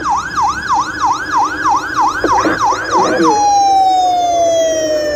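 Fire engine's electronic siren on a fast yelp, sweeping up and down about four times a second. About three seconds in it switches to one long, slowly falling wail.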